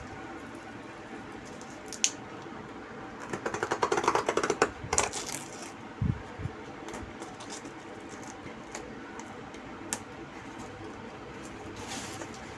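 A courier parcel being torn open and its packaging handled: a rapid rattly rip a few seconds in, scattered sharp clicks, and a dull knock about halfway through.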